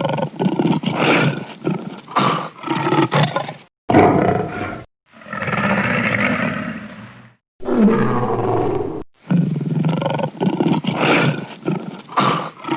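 Lion roaring: runs of short roars repeated in quick succession, with a long drawn-out roar about five seconds in and another about eight seconds in. Several separate recordings are joined with abrupt cuts and brief silent gaps between them.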